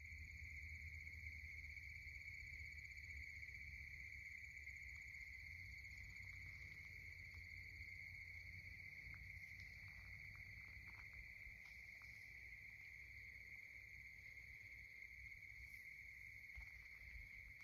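Faint, continuous high trill of crickets at dusk, holding one steady pitch throughout, over a low rumble.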